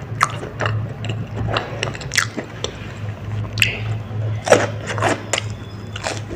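Close-miked biting and chewing of a spicy baby corn dog: irregular crunches and wet mouth sounds, over a steady low hum.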